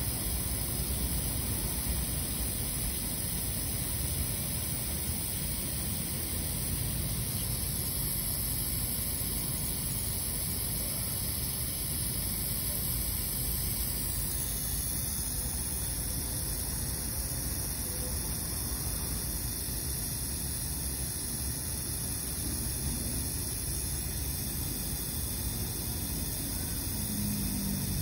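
Aerosol can of SABALON hair spray spraying continuously with its valve held down, giving a steady hiss.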